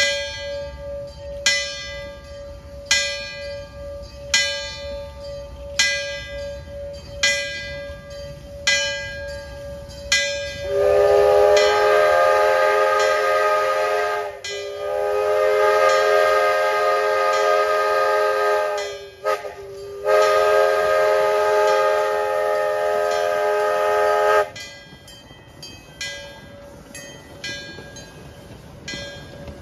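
Steam locomotive bell ringing steadily, one stroke about every second and a half, then the steam whistle sounding a chord in three long blasts with short gaps, after which the bell rings on more faintly. The locomotive is the railroad's 4-6-2 Pacific-type steam engine #5.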